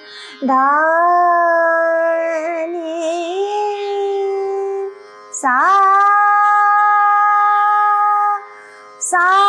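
A woman sings Indian classical vocal phrases on open vowels. Each phrase slides up into a long held note, and the first carries a quick wavering ornament and steps up in pitch. Short breaths separate the phrases, and a new one begins near the end.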